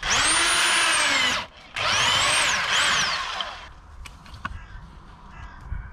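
Electric drill driving an earth auger into the soil, run in two bursts, each rising and falling in pitch as the motor speeds up and slows; it stops about three and a half seconds in.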